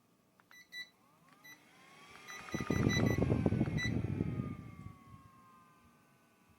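Electric tower fan's control beeping several times while its motor whine glides up and then back down in pitch, with a loud rough rush of air from about two and a half to five seconds in.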